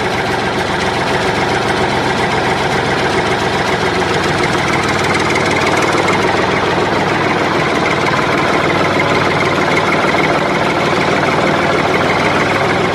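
Tractor engine sound running steadily, holding the same pitch and level throughout.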